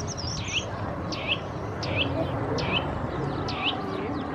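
A bird calling repeatedly: five short high calls, each sweeping down in pitch and then flicking up, about one every three-quarters of a second, over a steady background hiss.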